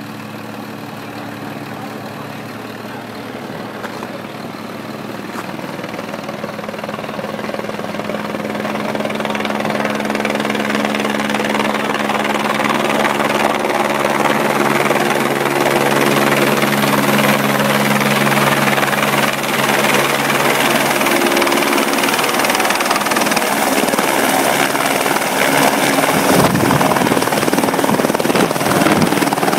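Aerospatiale AS350B single-engine helicopter approaching and landing. Its rotor and turbine sound grows steadily louder over the first half as it closes in, then holds loud and steady as it sets down.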